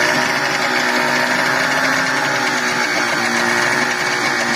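Small two-cylinder outboard motor running steadily on a test run after servicing, sounding smooth and healthy.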